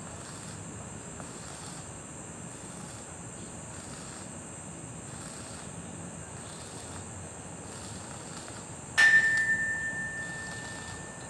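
A single sharp metallic strike about nine seconds in that rings on at one clear tone and fades away over about two seconds, over a steady chorus of crickets chirping in slow pulses.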